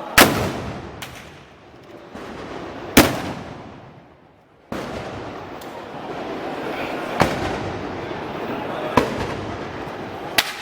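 Black-powder harquebus shots fired one at a time: about five sharp bangs a few seconds apart, the first and second ringing on briefly, over a steady background din.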